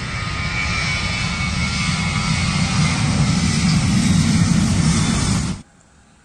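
Jet airliner's turbofan engines at takeoff power as the aircraft rolls and rotates: a loud, steady rush with a deep rumble and a high whine, growing slightly louder. It cuts off suddenly about five and a half seconds in.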